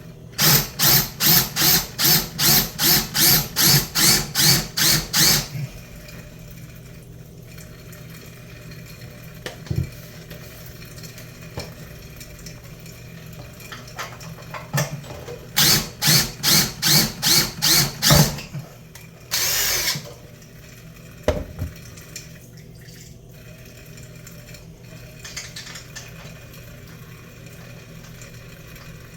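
Power drill driving a screw in two runs of short, rapid pulses, about three a second, each lasting a few seconds. A brief hiss follows the second run.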